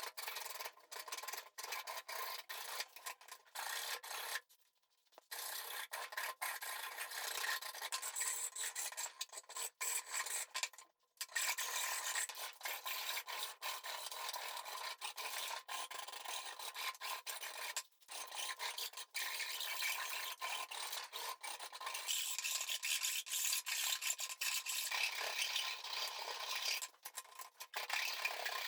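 Steady scratchy rubbing of a file or rasp being worked by hand on a small axe during its restoration, with short breaks between strokes and brief pauses about five, eleven and eighteen seconds in and near the end.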